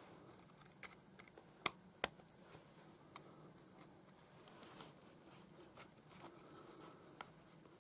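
Scattered light metal clicks and taps of a thin metal tool against a tin can whose lid has been milled loose, prying at the cut lid.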